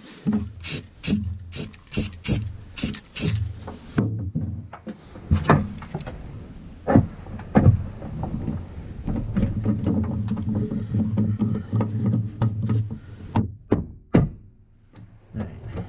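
Hand tools working at holes drilled in a sheet-metal panel. First comes a run of six quick, sharp scrapes about two a second as the holes are cleaned out. Then a hand rivet-nut tool is fitted into a hole, with low rumbling handling noise and scattered clicks and knocks.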